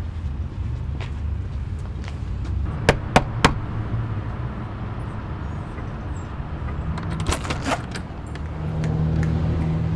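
Three sharp knocks on a panelled front door, close together about three seconds in, over a steady low background rumble. Around seven seconds in, a few lighter clicks as the door's latch is worked and the door is opened.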